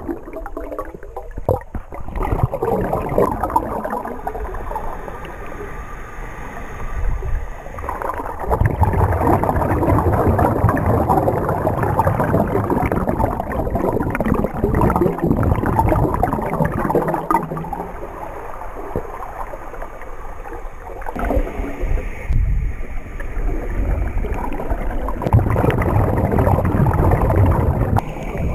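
Muffled underwater noise heard through a camera housing: rushing and gurgling water with streams of air bubbles from the divers' regulators. It swells louder about a third of the way in and stays uneven, rising and falling.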